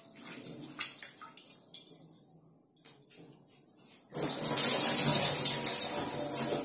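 Water running and splashing at a steel kitchen sink as rice is rinsed in a steel pot, starting loudly about four seconds in. Before that, a few light clinks of steel vessels are heard.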